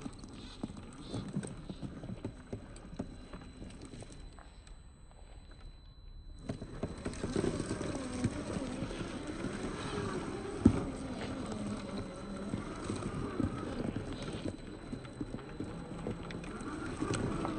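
1/10-scale RC crawler driving over dirt and rocks: the electric motor and geartrain whine, rising and falling in pitch with the throttle, while the tyres crunch and clatter on the ground. About ten and a half seconds in there is one sharp knock.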